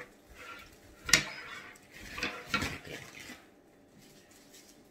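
Crab leg shell being cracked and pulled apart by hand: one sharp crack about a second in, then a few shorter crackling snaps.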